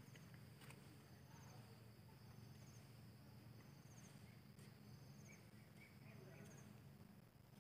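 Faint outdoor insects, likely crickets: a steady high drone with a short chirp repeating about once a second, over a low steady hum.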